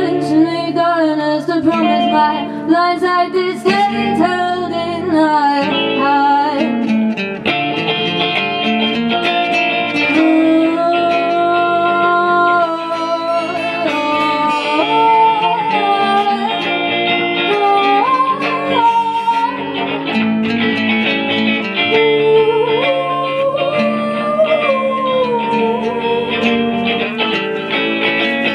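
Live music led by guitar, with a melody line weaving over steady plucked chords.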